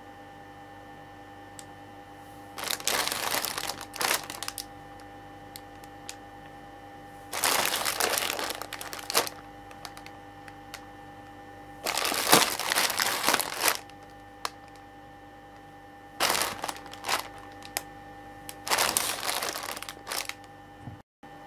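Plastic wrapper of a Maruchan Okinawa soba five-serving instant noodle multipack crinkling as it is handled and turned over. It comes in five separate bouts of a second or two each, over a faint steady hum.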